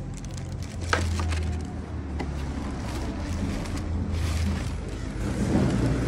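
Plastic wrapping crinkling and paper rustling as a box is unpacked by hand, with a sharp click about a second in, over a steady low hum.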